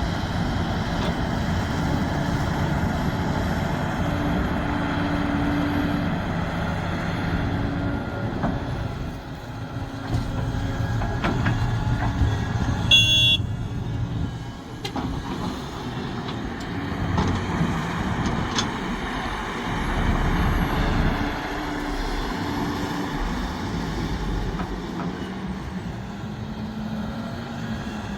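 Sumitomo SH370LHD-6 excavator's diesel engine running and changing pitch as the machine works, with scattered knocks and a brief high squeal about halfway through.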